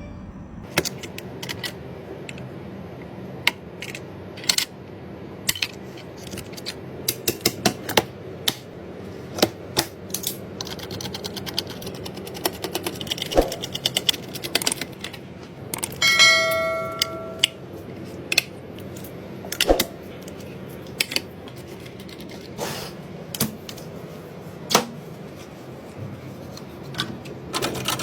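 Irregular small clicks, taps and knocks of PC parts being handled and fitted during assembly, with a brief ringing tone of several pitches about sixteen seconds in.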